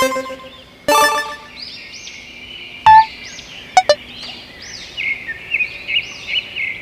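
Birds chirping over and over in quick arching calls, with a thin steady whistle-like tone joining near the end. A few short sharp sounds cut in: one about a second in, the loudest about three seconds in, and a brief double snap just before four seconds.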